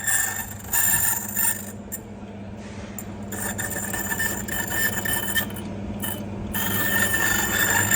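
Key-cutting machine cutting a blank key: a steady motor hum under a high metallic ringing from the cutter on the key metal, which comes and goes as the key is worked along the cutter.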